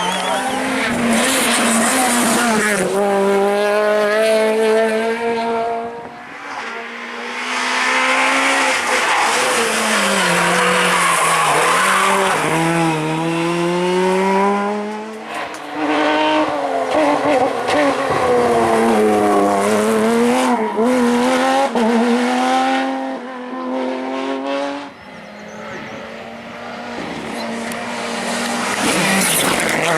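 Rally cars driven flat out on a stage, engines revving high and dropping back with each gear change. The sound dips briefly about six, fifteen and twenty-five seconds in, between runs.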